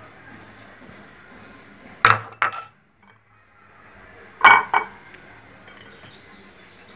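Spoon and ceramic plate clinking in two short clusters of sharp knocks, about two and a half seconds apart, over a faint steady hiss.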